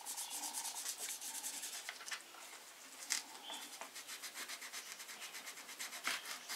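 Corrugated plastic (Coroplast) strip being scuffed by hand with sandpaper: quick back-and-forth scraping strokes, densest in the first two seconds and then in shorter bursts. The scuffing roughens the plastic so hot glue will grip it.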